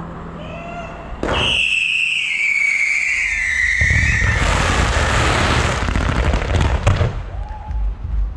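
Fireworks going off: a sudden launch about a second in, a long whistle falling in pitch, then dense crackling with a low rumble and a few sharp bangs.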